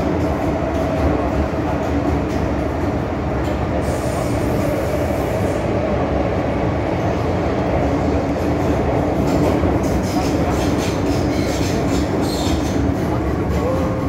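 MTR Island Line M-Train running, heard from inside the passenger car: a steady rumble of wheels on the rails with a droning hum from the train's running gear.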